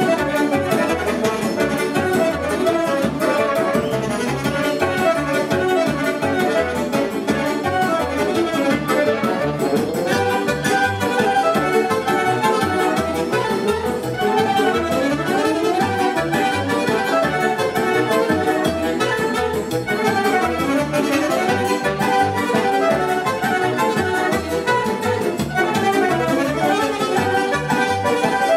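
A live dance band playing fast, steady traditional dance music through loudspeakers, with an accordion carrying the melody over a driving beat.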